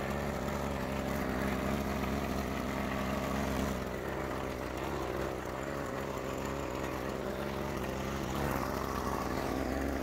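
Toro TimeMaster 30 walk-behind lawn mower engine running at a steady speed.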